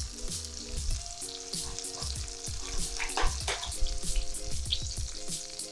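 Swiss chard sizzling and crackling in a steaming sauté pan, with a few sharp clicks as the pan is handled, over soft background music.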